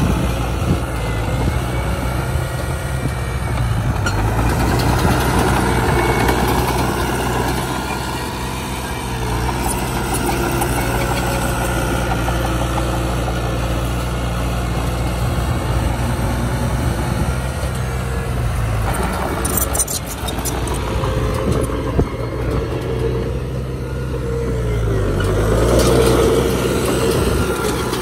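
Heavy diesel engine of earthmoving machinery running steadily, swelling louder a few seconds in and again near the end, with a brief dip in pitch just before the last swell. A few sharp knocks come about twenty seconds in.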